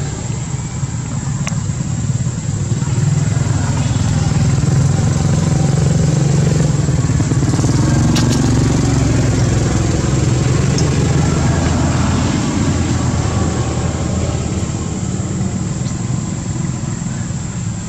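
A steady low engine hum, like a motor idling, that swells slightly in the middle.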